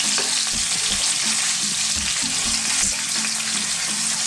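Scallops sizzling steadily in hot oil in a non-stick frying pan, with irregular taps and scrapes of a metal spoon against the pan as they are flipped over to sear the second side.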